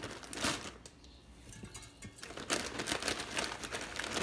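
Broccoli florets rustling and bumping as they are dropped by hand into a stainless steel steamer basket full of cauliflower: a short rustle at the start, then more, denser handling from a little after two seconds.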